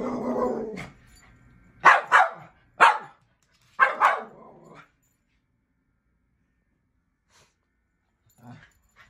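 Miniature poodle barking at animals on a television: five short, sharp barks between about two and four seconds in, the first two and last two close together.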